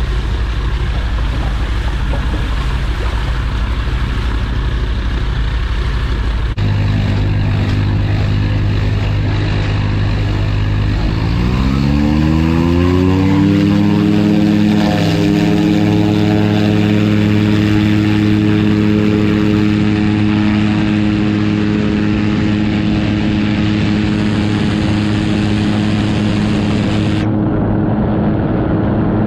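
Seamax amphibian's Rotax 912 engine and pusher propeller running at low power, then about eleven seconds in sharply revving up to full power and holding there for a takeoff run from water. Spray and water rush off the hull under the engine.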